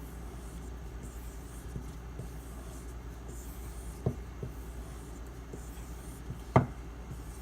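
Knife blade being stropped on a strop loaded with white compound to bring the edge to a bright polish: soft rubbing strokes over a steady low hum. There are two short knocks, the louder one near the end.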